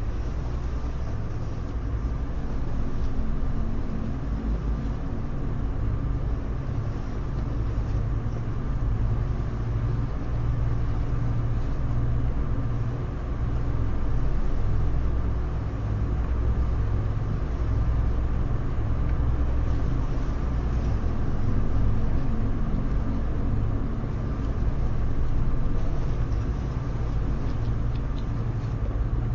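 A steady low mechanical rumble with a faint hum in it, swelling and easing gently.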